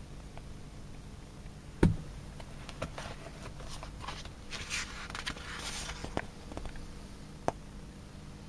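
Paperback book being handled: a single sharp thump about two seconds in, then paper rustling and sliding with scattered light clicks as the cover is opened and the pages are turned, and one more click near the end.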